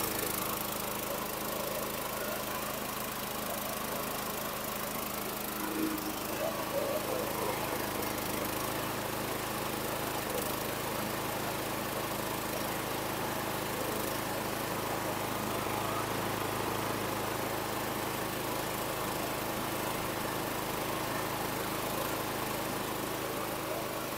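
Small four-stroke overhead-valve engine of a 2000 Scotts (John Deere-built) walk-behind mower running at a steady speed after a hard start; the owner says it doesn't sound bad.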